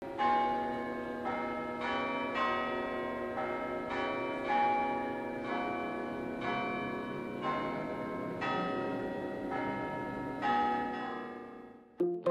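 Crouse College tower chime bells playing a slow melody, about a dozen single bell strikes roughly a second apart, each note ringing on into the next. The ringing fades and cuts off near the end.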